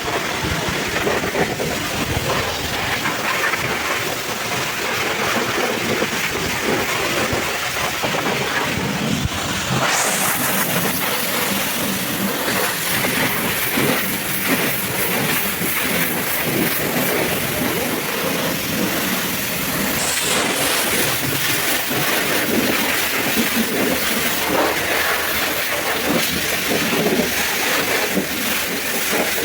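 High-pressure washer jet spraying water onto a muddy truck: a steady rushing hiss and spatter. The sound turns abruptly brighter and sharper about ten seconds in.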